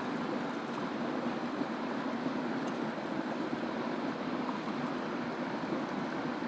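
River water rushing steadily, a continuous even wash of noise.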